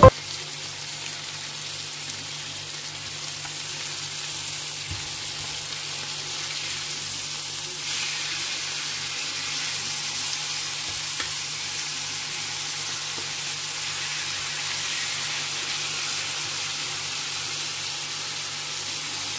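Beef steaks searing with sliced garlic in a hot ridged grill pan: a steady sizzle that grows a little louder about eight seconds in, with a couple of faint clicks.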